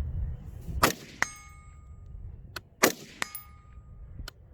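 AR-15 rifle fired twice, about two seconds apart. A moment after each shot comes the clang of the bullet striking a steel target, which rings on with a clear tone.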